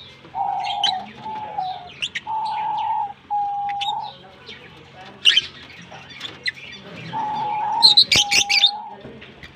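Lovebirds chirping in short, sharp, high calls, with a loud flurry about eight seconds in. Under them runs a steady held call note, repeated in pairs.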